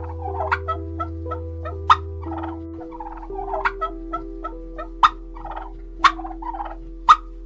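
Ground birds calling in short, harsh notes, with sharp clicking calls about once a second, over soft background music.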